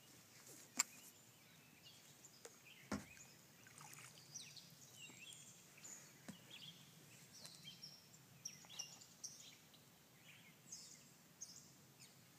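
Faint birdsong from the wooded banks: many short chirps and whistles, with a sharp click about a second in and a low knock about three seconds in.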